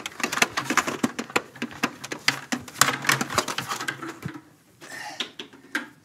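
Rapid, irregular clicking and tapping that thins out after about four seconds, with a few more clicks near the end.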